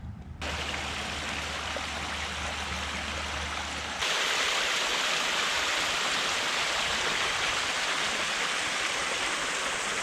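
Steady rush of flowing creek water, with a low rumble under it at first; about four seconds in it cuts abruptly to a louder, brighter rush.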